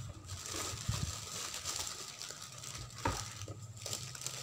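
Clear plastic bag crinkling and rustling as a capsule espresso machine is worked out of it, with a sharp knock about three seconds in.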